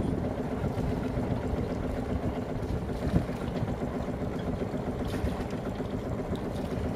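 Sailboat's inboard engine idling steadily, the boat lying moored at the jetty.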